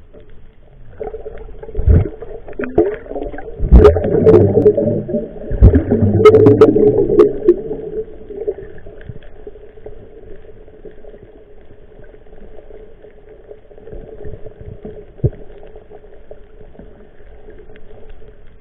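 Underwater sound picked up by an action camera: a steady hum, with a run of knocks, bumps and rushing water between about two and eight seconds in as netted fish thrash, then the hum alone with a few faint knocks.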